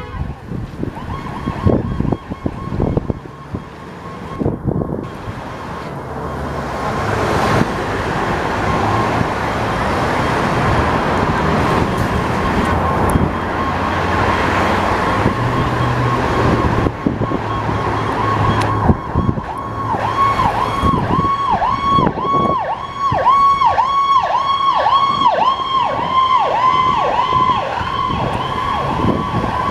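Emergency vehicle's electronic siren sounding while responding, with loud engine and road noise swelling in as the vehicle comes close. In the last third the siren switches to a fast yelp.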